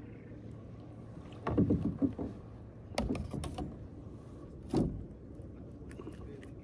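Handling noise in a kayak: a scuffle about a second and a half in, a sharp knock about three seconds in, and a duller thump near five seconds as the rod and paddle knock against the hull.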